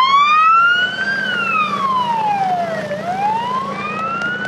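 A siren on its wail setting, sliding slowly up, down and up again, over a steady low rumble of traffic engines.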